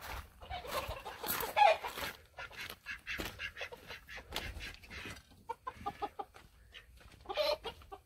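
Chickens clucking in short call notes, with a quick run of five or so clucks about five and a half seconds in, over footsteps crunching on a wood-chip path.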